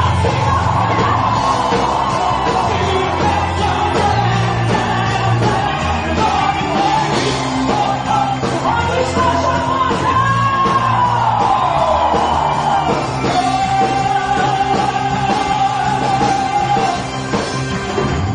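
Band playing loud rock-style music, with voices singing long held notes and shouting over it.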